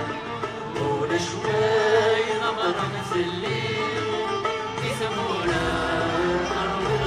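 Live Kabyle song from a band on stage, with a singing voice carrying a bending melody over the instrumental accompaniment, heard from far back in a large concert arena.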